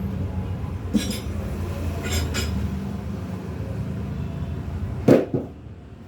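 Metal hand tools clinking against a wheel rim during manual tyre changing: a single clink, then a quick pair, then a heavy knock about five seconds in. A steady low rumble runs underneath.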